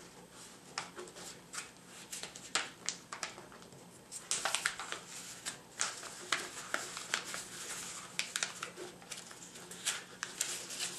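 A sheet of paper rustling and crackling as it is folded and creased flat against a tabletop, fingers pressing along the fold; sparse crackles at first, then quicker and louder from about four seconds in.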